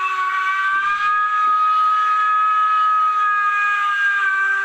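Zimo sound decoder's steam-whistle sample on a Roco HO BR52 model, a long held whistle blast of several tones together, played through the model's small speaker. The pitch shifts slightly about a second in and again near the end.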